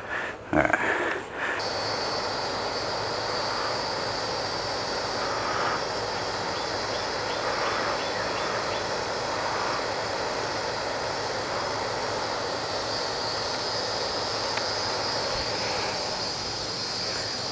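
Steady high-pitched shrilling of an insect chorus in the trees over a constant background hiss, starting after a few bumps from the camera being moved.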